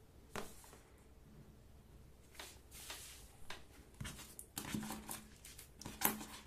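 Faint handling noise of a smartphone in the hands: a single click about half a second in, then scattered rustles and light taps that grow busier toward the end.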